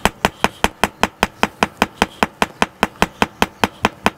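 Rubber mallet beating rapidly on the top of a metal rotisserie support peg, about five even blows a second, driving its spike down into soft sand.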